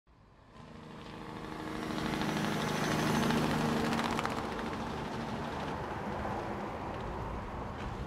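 A vehicle engine running with a steady hum. It swells over the first three seconds, then settles into a steady, noisier drone.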